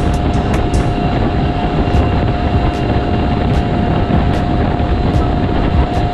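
Mercury 25 hp two-stroke outboard running steadily at full throttle, a constant high whine over a low rumble, with the rush of wind and water as the skiff runs at top speed.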